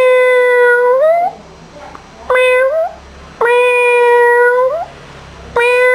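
Domestic cat meowing in drawn-out, steady-pitched calls, each rising at its tail. There are two long ones and a short one, and another begins near the end.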